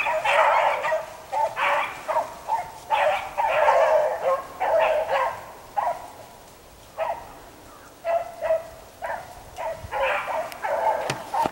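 Rabbit beagles baying in irregular bursts of barks, hounds giving tongue while running a rabbit's trail, with a short lull a little past halfway.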